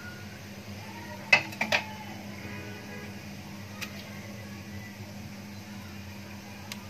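A few sharp knocks on a steel cooking pot: three in quick succession about a second in, then single taps later. Underneath, a steady low hum.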